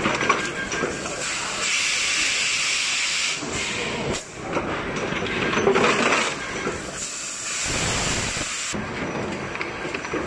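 PET bottle stretch blow moulding machine running, its compressed air hissing in repeated bursts a second or two long as the moulds blow bottles and vent. The last burst is the loudest and fullest, and a few short mechanical knocks sound between the bursts.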